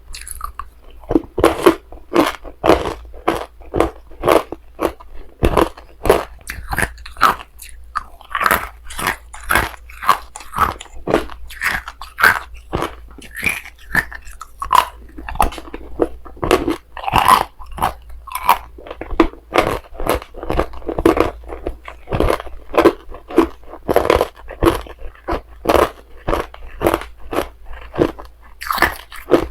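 Hard ice being bitten and chewed close up: a dense, irregular run of sharp crunches, several a second.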